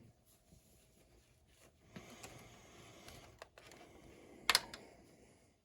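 Faint handling of a key blank in an antique Corbin padlock, with rustling and a sharp click about three and a half seconds in, and a louder click about a second later.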